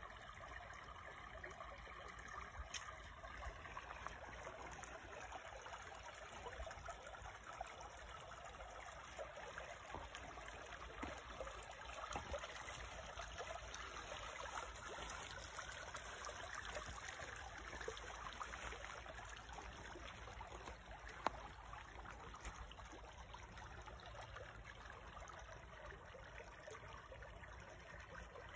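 Small shallow creek flowing and trickling over stones in a steady rush of water, with one sharp click about two-thirds of the way through.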